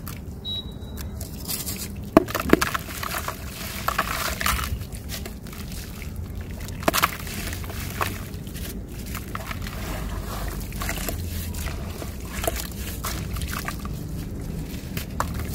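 Hands crumbling and squeezing gritty chunks of dried earth in a tub of water: wet sloshing and dribbling, broken by sharp crackles and splats. The strongest of these come twice about two seconds in and again near seven and eight seconds.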